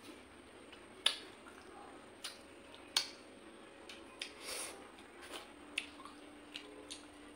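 Eating by hand: soft wet squishing of rice and fish-head curry being mixed with the fingers and chewed, with sharp smacking clicks, the two loudest about a second and three seconds in.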